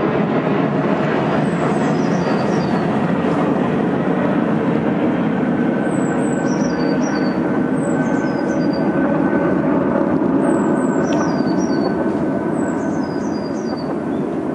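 A loud steady noise with no clear rhythm or change, and over it short high chirps, two falling notes at a time, that recur every couple of seconds, like small birds calling.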